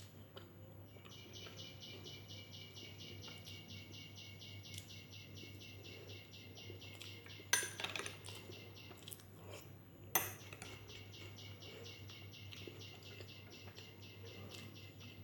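A cricket chirping in a fast, even pulse, about six chirps a second, that stops for a few seconds midway and then resumes. Two sharp clinks of dishware or cutlery, one about halfway through and another near ten seconds in, are the loudest sounds.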